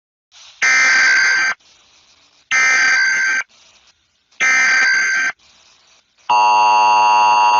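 Emergency Alert System SAME header: three one-second bursts of buzzy data tones, evenly spaced, then the steady two-tone attention signal starting about six seconds in, which marks the start of an emergency broadcast alert.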